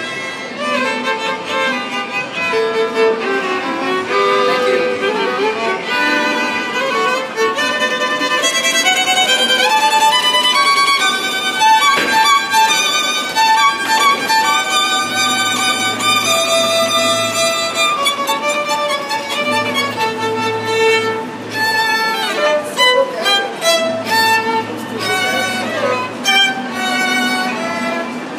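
Two violins playing a duet, bowed melody lines with runs of quick notes through the middle stretch.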